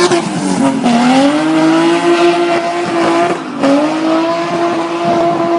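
BMW E21 with a 3-litre engine swapped into a 316 body, revving hard. Its pitch drops and climbs back up twice, about half a second in and again about three and a half seconds in, holding high in between; it is loud and falls away at the end.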